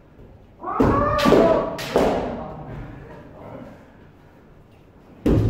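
Kendo strikes: loud kiai shouts with sharp hits of bamboo swords and stamping feet about a second in, fading over the next couple of seconds, then another hit and shout near the end.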